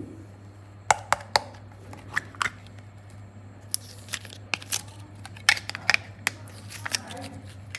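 Plastic clay mold clicking and crinkling as it is handled and soft modelling clay is peeled out of it: a string of sharp, uneven clicks and crackles.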